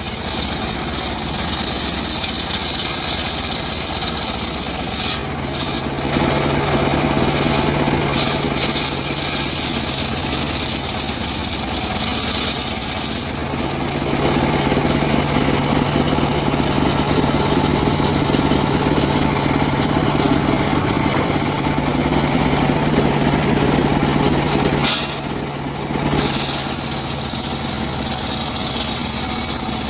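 Engine-driven saw running steadily while cutting timber, with two brief dips in level.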